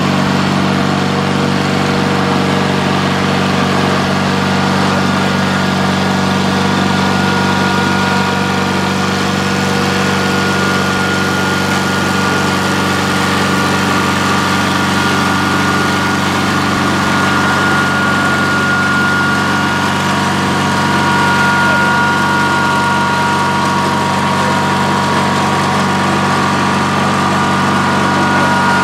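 Snapper 2000 GX lawn tractor engine running steadily at low speed while the tractor tows a loaded hand truck, with a thin steady whine above the engine note that is clearer in the second half.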